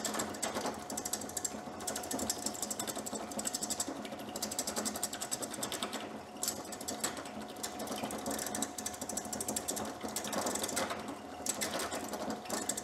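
Wood lathe running while a turning gouge roughs down a spinning log blank, the tool rattling rapidly against the wood as it knocks off the high spots of the still out-of-round blank, over the lathe motor's steady hum. The cutting eases off briefly a few times.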